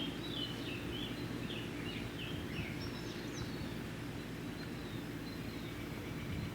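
Steady low background noise, with a run of short, high chirps that slide in pitch, a few a second, over the first three seconds.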